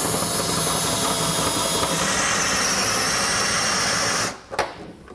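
Cordless drill running a step bit through the floor of a pickup truck bed, enlarging a pilot hole to 7/8 inch. It runs steadily, changes pitch about two seconds in, then stops about four seconds in, followed by a couple of light knocks.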